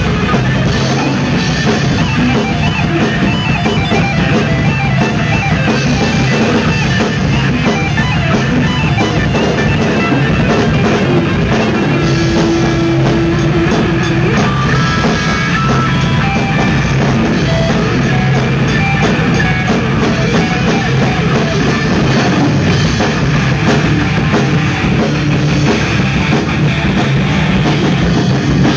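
Rock band playing live: electric guitar over a drum kit, loud and continuous, with a held guitar note about twelve seconds in.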